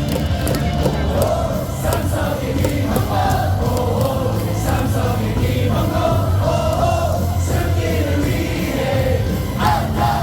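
Stadium crowd singing a baseball cheer song in unison over loud PA music with a steady heavy bass line; the crowd swells louder near the end.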